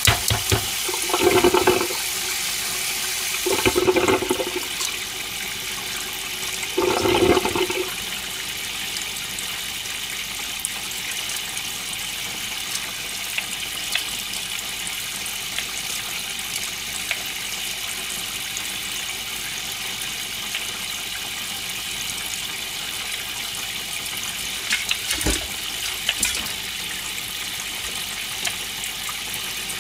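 Kitchen tap running in a steady stream into a metal colander of cut vegetables in a stainless sink. Three short, louder handling sounds come in the first eight seconds, and another comes near the end.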